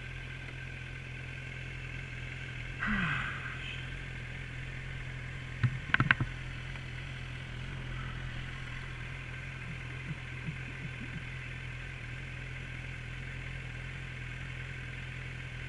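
Motorcycle engine idling with a steady low hum. There is a short hiss about three seconds in and a few sharp knocks around six seconds.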